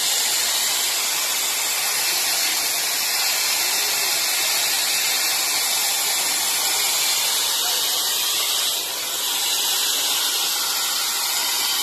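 A steady, loud high-pitched hiss, dipping briefly a little under nine seconds in.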